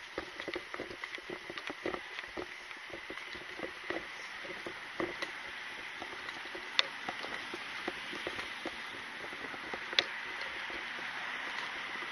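Footsteps and the rattle and rustle of carried gear against a body-worn microphone while walking, over a steady hiss with a thin high tone. Two sharp clicks come in the second half.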